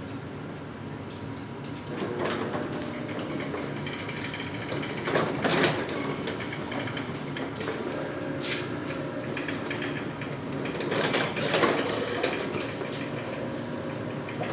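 Sectional garage door running along its steel tracks on freshly replaced, lubricated rollers, a steady rolling rumble broken by several knocks as the panels move.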